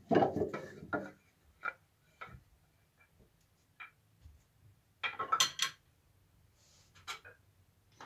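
Steel wood-turning chisels with wooden handles clinking and clattering against each other and the table as they are gathered up: a dense burst of knocks at the start, a few single taps, another clattering burst about five seconds in, then a couple of lighter knocks.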